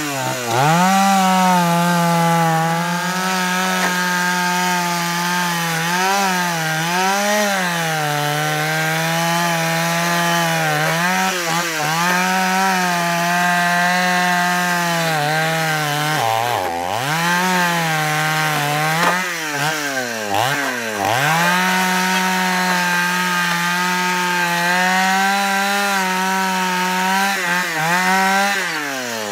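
Two-stroke chainsaw running at high revs as it cuts wood. Its pitch sags and recovers several times as the chain bites into the log and loads the engine, and it falls away at the end as the throttle is released.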